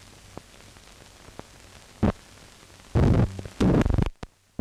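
Noise from an old optical film soundtrack running over blank run-out film: a low steady hiss with scattered clicks and pops, and loud crackling bursts about two seconds in and again from about three to four seconds in. It cuts out sharply near the end.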